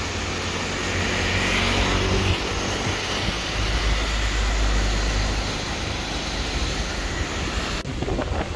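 Small propeller plane's engines running, a loud steady drone with a deep rumble. The sound changes abruptly near the end.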